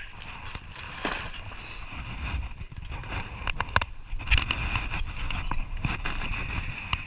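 Fishing boat's engine running with a steady low rumble, and a few sharp knocks and clicks from gear being handled about three and a half to four and a half seconds in.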